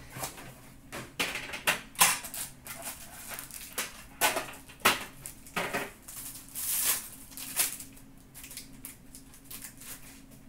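Foil hockey card pack wrappers crinkling and tearing as packs are ripped open and the cards slid out, a string of irregular sharp crackles and rustles over a faint steady hum.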